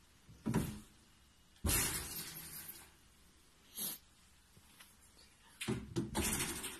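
Wire-mesh cage doors worked by their handles: a knock of the catch, then a clattering rattle lasting about a second, and another run of clattering knocks near the end.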